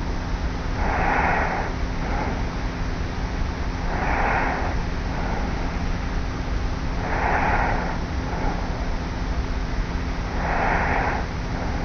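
A young woman's slight snoring in her sleep while lying on her back: four soft, regular snoring breaths about three seconds apart. The recording comes from a tape recorder lying on the pillow, with steady tape hiss and a faint low hum beneath.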